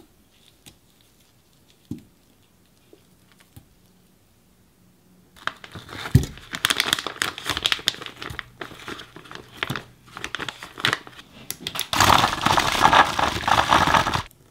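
Crackling, crinkling handling sounds with a thump about six seconds in, as peach halves go into a plastic blender cup. Then a Pinsoon blender runs for about two seconds, chopping the peaches, and stops just before the end.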